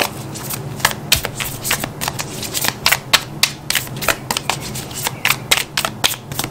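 A deck of oracle cards being shuffled overhand by hand: a quick, irregular run of crisp card slaps and slides, several a second.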